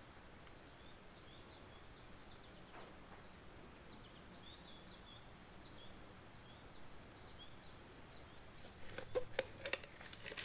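Faint bird chirps, many short calls scattered through a quiet background hiss. Near the end come a few sharp clicks and knocks.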